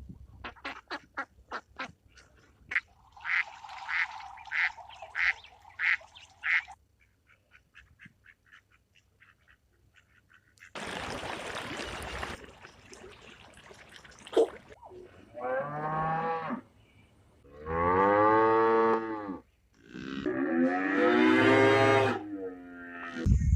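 A run of farm-animal calls: rapid repeated duck quacks over the first several seconds, a short burst of noise about 11 seconds in, then cattle mooing in long, loud calls from about 15 seconds on.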